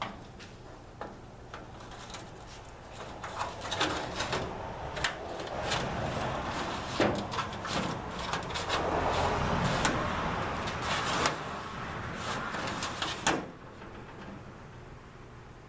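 Metal drawer of a Craftsman tool chest being pushed in and pulled out on its steel slides, scraping and rattling with sharp knocks, to test a freshly spot-welded slide. It starts with a few light clicks, works busily from about three seconds in, and stops with a last knock near the end.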